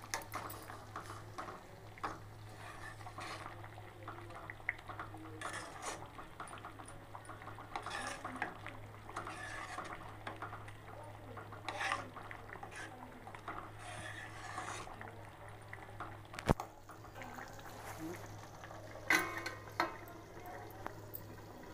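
A metal spoon stirring and clinking in a pan of kofta curry: a run of small scrapes and clicks with one sharp knock about three-quarters through, over a steady low hum.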